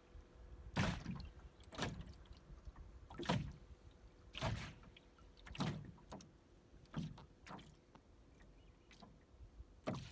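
Paddle strokes in water: a splash and swirl about once every second or so, eight in all.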